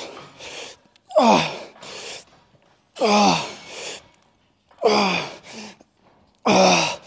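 A man breathing hard with effort through a set of heavy dumbbell Bulgarian split squats. Each rep brings a loud, voiced exhale that falls in pitch, then a shorter breath, about every two seconds, five times.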